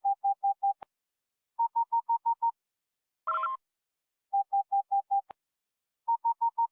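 Electronic beeping: quick runs of five or six short beeps, about seven a second, alternating between a lower-pitched run and a higher-pitched run, with a brief chirp between the pairs of runs, the whole pattern repeating about every three and a half seconds.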